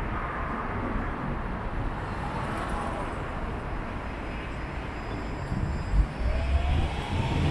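Motor vehicle running with steady road noise and low rumble; an engine note rises near the end, with a few low thumps just before.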